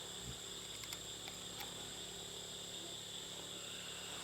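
Steady chorus of night insects: a constant high-pitched trill, with a few faint clicks about a second in.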